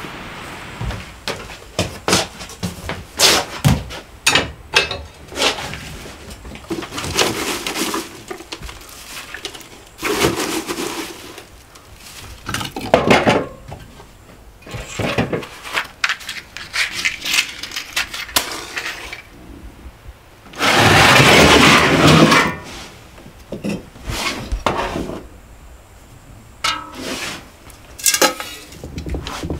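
Split firewood knocking and clattering as it is stacked into a wood stove's firebox, then metal clanks and scraping from a shovel and poker working ash into a metal bucket. A loud rushing scrape lasting about two seconds comes a little past two-thirds of the way through.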